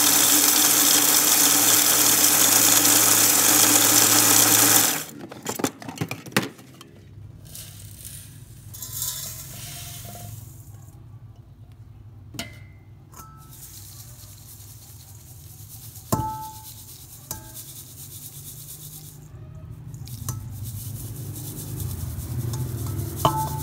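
Electric food chopper with a stainless-steel bowl running at full speed, grinding, for about five seconds, then switched off. Afterwards, quieter light rattles and taps of the ground crumbs in a metal sieve.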